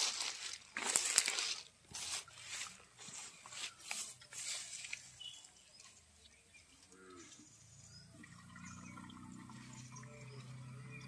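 Rustling and splashing as hands push through water hyacinth and shallow pond water to handle a clay pot fish trap: a run of short, noisy bursts in the first half, then quieter, with a faint low hum.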